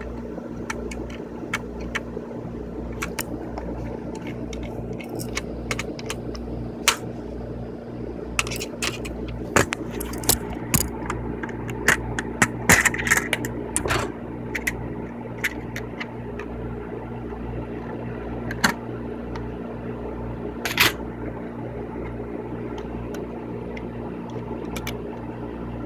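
Scattered small metallic clicks and taps as a screwdriver works the last screw out of a floppy disk drive and the metal casing is handled, busiest in the middle stretch, over a steady low electrical hum.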